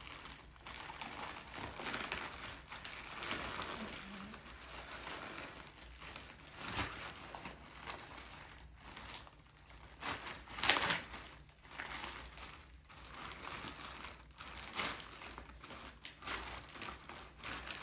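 Plastic courier mailer bag crinkling and rustling in irregular bursts as it is handled and pulled open by hand, loudest about eleven seconds in.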